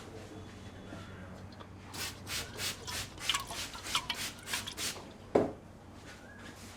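A barber's hands rubbing quickly through a customer's hair during a head massage, a fast irregular run of short hissy strokes, ended by one louder thump.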